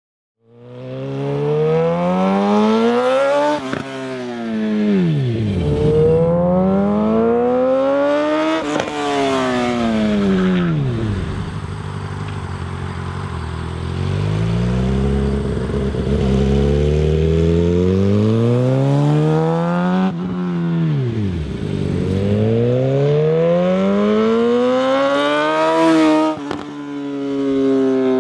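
2006 Suzuki GSX-R600 inline-four with a full Two Brothers exhaust, ridden hard: the engine note climbs in pitch and then falls away sharply several times, with a lower, steadier stretch in the middle. A few sharp pops come through the exhaust as the throttle closes.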